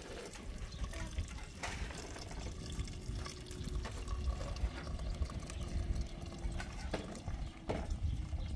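Water running or being poured, with a few sharp knocks over a steady low rumble.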